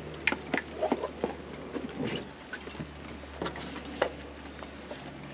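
Handling noise from a small boxed bulb and hand tools being set down and picked up in a car's engine bay: a string of light clicks, taps and rustles.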